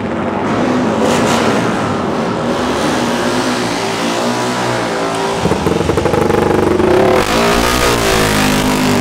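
Racing motorcycle engines running and being revved up and down repeatedly, with a quick stutter of sharp blips about halfway through.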